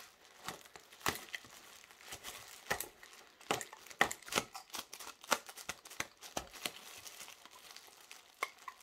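Clear plastic bag wrapping crinkling and tearing as its tape is cut open with a small blade, in irregular sharp crackles.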